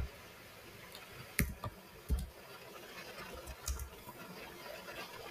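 A few separate computer keyboard keystrokes, about five irregular taps over several seconds, the first the loudest.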